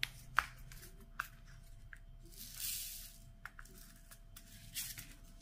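Faint clicks and taps of diamond-painting drills being set onto the canvas by hand, with two brief rustles about two and a half and five seconds in.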